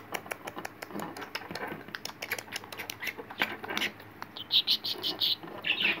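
Yellow budgerigar pecking at a metal hair claw clip: a fast, irregular run of sharp beak clicks and taps, with a few short high chirps about four and a half seconds in and again near the end.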